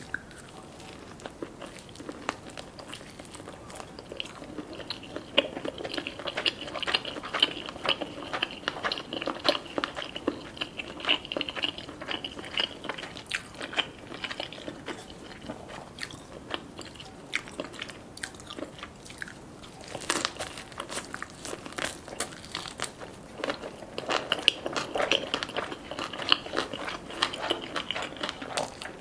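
Close-up eating sounds: crunching bites and chewing of black rice cones filled with spicy chopped scallop, avocado and salmon sashimi, with dense clicks and crackles throughout.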